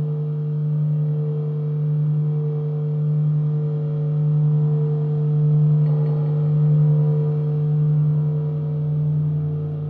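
Sustained droning tone, a low hum with a fainter higher tone above it, swelling and fading in a slow pulse about once a second without dying away, like a singing bowl.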